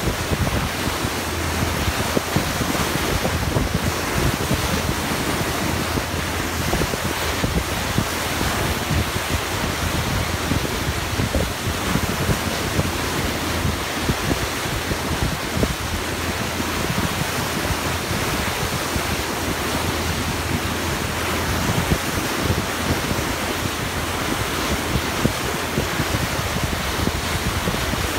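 Water rushing and churning in a boat's bow wave, with wind buffeting the microphone: a steady, unbroken noise.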